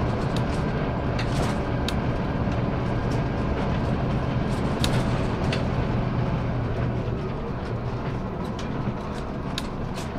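Scania CN270UB city bus heard from inside the cabin, its Scania DC9 nine-litre five-cylinder diesel running with a steady low hum as the bus drives along a cobbled street, with scattered clicks and rattles from the interior.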